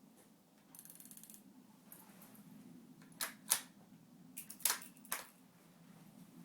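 Rifle scope turret being turned: a quick run of fine ratcheting clicks. A couple of seconds later come about five sharper, louder clicks and knocks.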